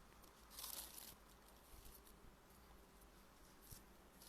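Near silence, with one faint, short rustle of paper handled about half a second in.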